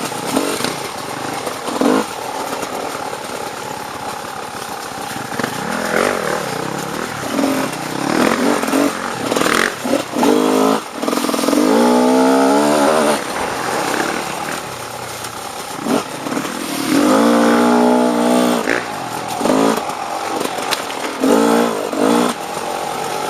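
Off-road dirt bike engine running and revving in repeated bursts. There are short blips of throttle and two longer, held revs, one about halfway through and another a few seconds later.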